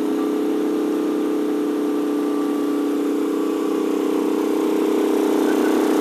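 GenMax GM10500 inverter generator running steadily under a heavy load of about 7.5 kW, a constant engine hum that grows slightly louder toward the end.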